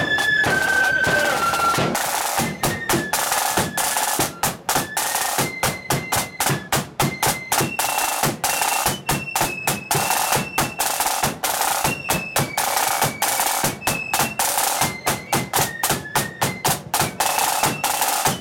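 Marching band's side drums and bass drum beating a fast, dense parade rhythm with rolls, coming in hard about two seconds in. A high flute melody runs behind the drums.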